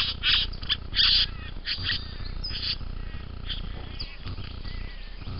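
Young satin bowerbird giving a run of short, harsh, rasping calls, thickest in the first two seconds and sparser after, over a low steady hum.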